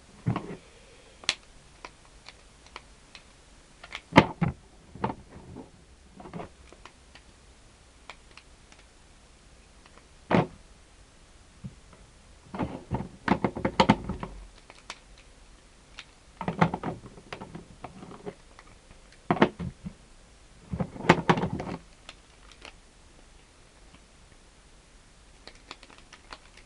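Plastic tiles of a Rubik's Magic folding puzzle clacking as its panels are flipped over and refolded, in scattered single clicks and short clusters of clacks.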